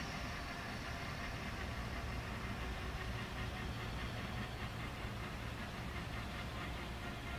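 Eurocopter EC135 P2 rescue helicopter's turbine engines running down on the pad after landing: a steady low hum with a few faint steady tones, the high hiss above it slowly fading.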